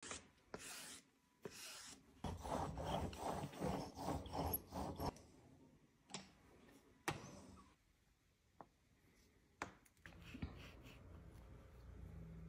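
Hand tools working a slab of clay: a tool rubbed quickly back and forth across the clay surface for a few seconds, then scattered sharp taps and clicks.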